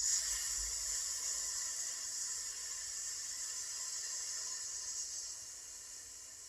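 A long, steady "sss" hiss breathed out on the exhale, the Taoist healing sound for the lungs. It starts sharply and tapers off about five seconds in.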